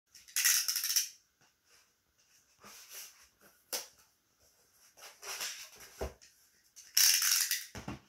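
Packing tape on a cardboard box being cut with a utility knife while the box is handled and turned on a table: a series of short scraping rasps, the loudest just under a second in and again about seven seconds in, with a few light knocks of the box against the table.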